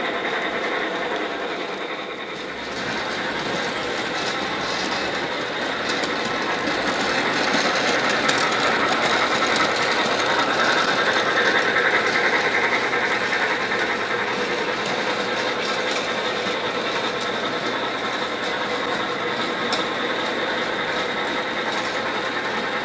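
Bachmann G-scale model locomotives running on brass track, their geared electric motors giving a steady whir with the wheels rolling on the rails. It grows louder around the middle as an engine passes close by.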